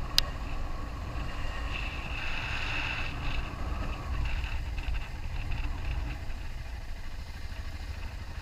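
2001 BMW F650GS Dakar's single-cylinder engine running steadily under way, under a constant rush of wind noise. A single sharp click sounds just after the start.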